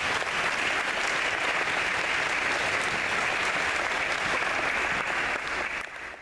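Audience applauding: steady clapping from many hands that dies away at the very end.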